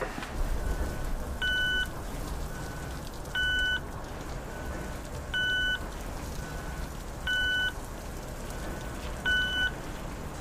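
Pedestrian crossing signal beeping slowly while the light is red: a short beep about once a second, every other beep louder, over a steady hiss and low rumble of the wet street.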